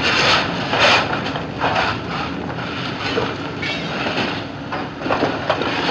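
Steady machinery rumble of a steamship's coal-fired boiler room, with several scrapes of coal shovels as stokers feed the furnaces.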